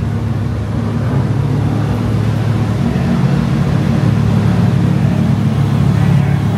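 Lamborghini Huracán V10 engine idling steadily as the car creeps into a garage bay, a low, even engine note.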